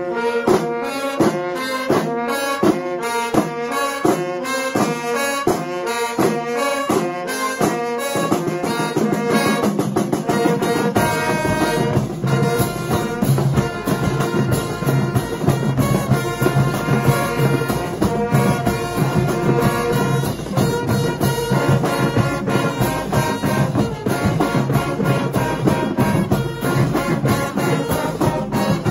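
High school marching band of brass, saxophones and drums playing. It opens with short punchy chords over regular drum hits, and about eight seconds in the full band swells into a sustained tune with low brass underneath.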